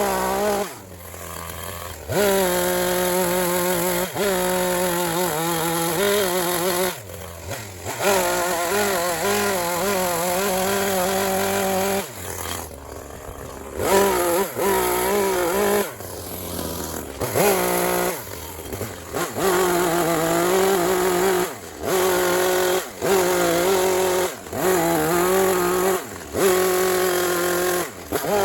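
Two-stroke gas chainsaw running at high revs as it cuts into wood, the pitch wavering under load. It drops back to idle in several short pauses between cuts.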